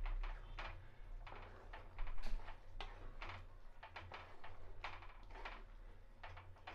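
Wooden spatula stirring a thick curry in a heavy black pot: irregular scrapes and light knocks against the pot, about one or two a second, with a louder one about two seconds in. A low steady hum runs underneath.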